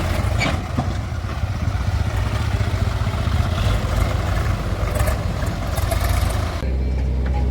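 Heavy diesel machinery engine running steadily, with scattered clanks and clatter over it. Near the end the clatter drops away abruptly and a steadier, deeper engine note remains.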